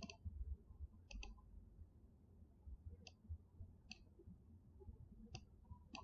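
Faint computer mouse button clicks, about six scattered over a few seconds with a quick double click about a second in, over a low, steady hum.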